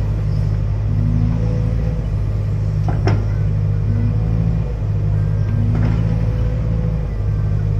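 Excavator's diesel engine running steadily, with short hydraulic whines coming and going as the arm is worked. A sharp knock about three seconds in and a fainter one near six seconds.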